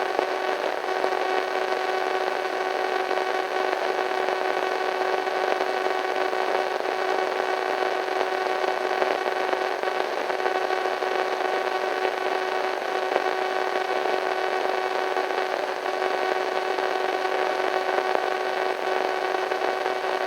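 Radio static from a weak signal: a steady hiss with a constant whining tone and its overtones running through it.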